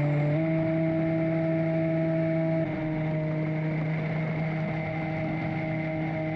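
Radio-controlled bait boat's electric motors whining steadily. The pitch steps up sharply about half a second in, then eases slightly in pitch and loudness partway through as the throttle changes.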